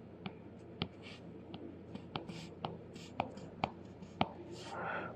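Stylus tapping and stroking on a tablet screen while dashed lines are drawn: faint sharp clicks about twice a second, with short soft scratches between them.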